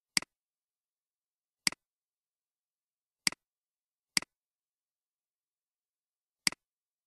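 Computer mouse button clicks: five sharp clicks, unevenly spaced, each a click followed at once by a fainter second one.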